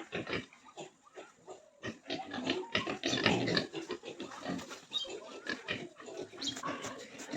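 Pigs grunting, a quick irregular run of short calls that is busiest around three seconds in.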